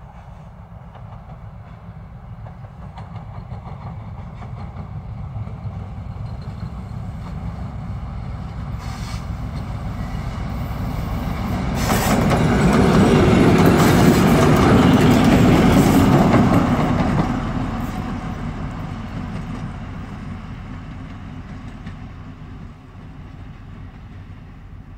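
2M62 twin-section diesel locomotive running light with no train, passing close by. Its two-stroke diesel engines grow louder on the approach, peak as it goes past a little after halfway, then fade as it pulls away.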